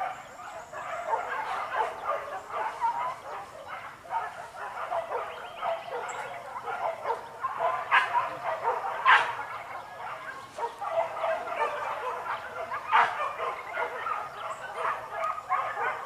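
A pack of hunting dogs barking and yelping without a break, giving chase after a wild boar, with three sharper, louder yelps in the second half.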